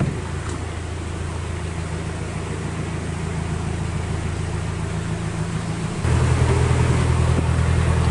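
Narrowboat's engine running steadily at low revs with a low, even hum; it gets louder about six seconds in.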